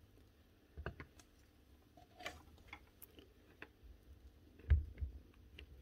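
Faint scattered clicks and taps of small metal power-tool parts being handled on a workbench while a nibbler's gear housing is greased, with a soft thump about three-quarters of the way through.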